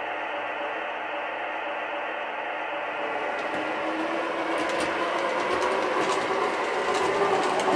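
O scale model CTA elevated train running on the layout's track: a steady motor whir that grows louder about three seconds in as the train comes past, with irregular clicking from the wheels on the rails.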